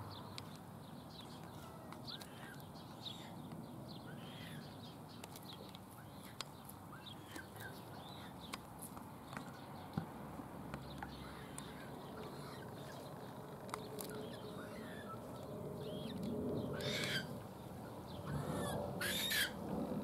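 Birds calling by a reedy pond: short chirps from small birds scattered throughout, then two loud, harsh calls about two seconds apart near the end, most likely pukeko (Australasian swamphen) calling.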